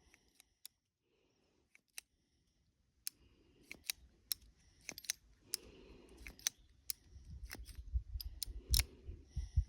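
Small metallic clicks and rattles from a Heritage .22 single-action revolver being reloaded by hand: the cylinder clicking round while spent cases and fresh rounds go in and out one at a time. The clicks are sparse at first and come thicker from about three seconds in.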